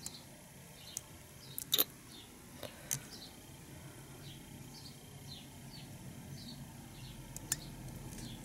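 Quiet fly-tying handling at the vise: a few sharp little clicks and taps of thread and materials, with faint, short, high chirps repeating about twice a second in the middle.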